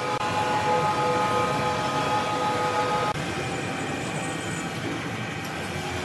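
Overhead electric hoist carrying a sawn hardwood slab: a steady mechanical running noise with a high motor whine. About three seconds in, the sound cuts abruptly to a slightly quieter, similar machine noise.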